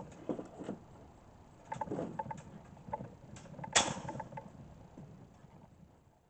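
Handling noises as a bed foundation is pulled out of its cardboard shipping box: rustling and scattered knocks and clicks, with one sharp knock about four seconds in.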